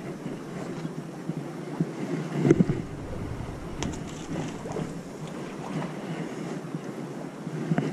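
Wind buffeting the microphone over small waves lapping against breakwater rocks, with one brief louder bump about two and a half seconds in.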